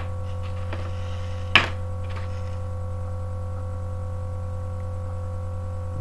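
Steady low electrical hum throughout. Over it, two sharp clicks, a softer one at the start and a louder one about a second and a half in, with faint rustling between: stone sinkers and their plastic packaging being handled by hand.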